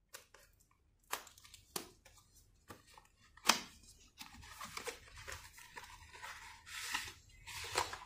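Small cardboard box being opened by hand: a few sharp snaps of card, the loudest about three and a half seconds in, then a long stretch of paper rustling and scraping as the inner tray slides out of its sleeve.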